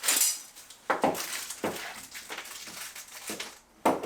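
A handful of irregular light knocks, clicks and clinks, as of hard objects or hardware being handled and set down.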